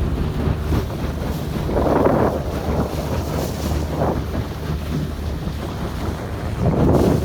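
Wind buffeting the microphone in gusts over a steady low hum, swelling louder about two seconds in and again near the end.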